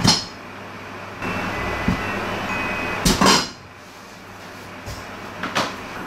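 Eggs bursting inside a covered clay pot in a running microwave oven: a sharp pop right at the start, two more close together about three seconds in, and a smaller one near the end, over the microwave's steady hum, which drops away after the second pair.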